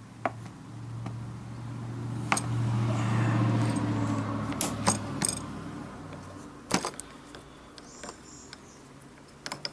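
Bench-mounted brake pipe flaring tool being worked by its handle to form a flare on the end of a copper brake pipe: a metallic grinding that swells over a few seconds and then fades, with several sharp metal clinks from the tool.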